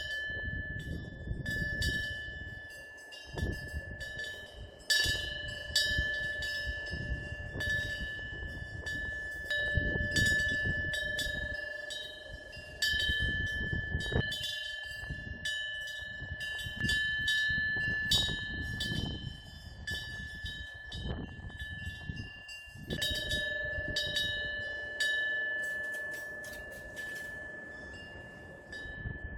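Korean temple eave wind bell (punggyeong) being swung by the wind, its clapper striking it at irregular intervals, many times over. Each strike leaves a clear ringing tone that hangs on into the next, over a low, shifting rumble of wind.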